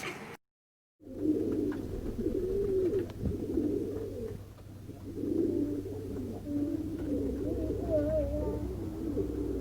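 Pigeons cooing: several overlapping low, wavering coos, with a steady low hum underneath. There is a brief dead silence about half a second in, just before the cooing starts.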